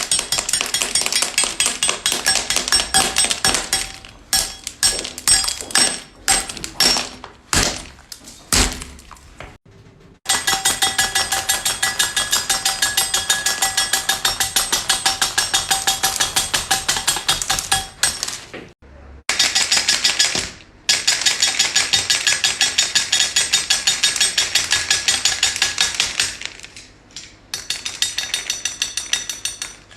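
Hard candy being chopped with a knife on a cutting board: long, fast runs of sharp, ringing strikes, broken by a few short pauses.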